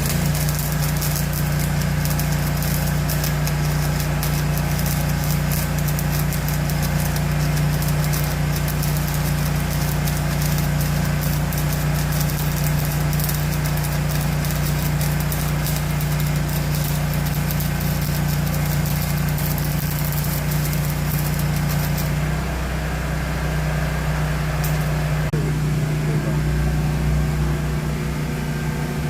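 An engine running steadily, with the dense crackle of a welding arc over it that stops about 22 seconds in while the engine runs on.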